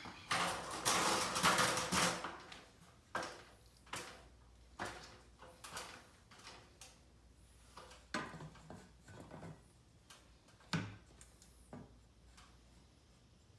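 A spirit level being handled against a drywall wall: a scraping rustle lasting about two seconds near the start, then scattered knocks and taps as it is set against the wall and moved.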